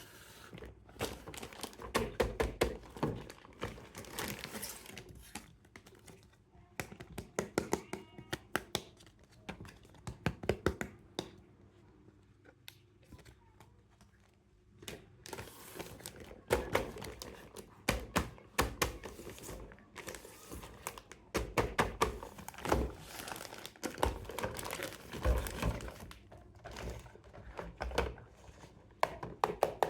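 Packaging being handled and crinkled, with plastic and cardboard rustling among many sharp clicks, taps and knocks, quieter for a few seconds near the middle.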